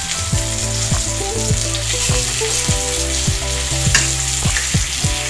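Floured chicken breasts frying in butter in a stainless steel pan: a steady sizzle, with a metal utensil scraping and clicking against the pan as the pieces are moved.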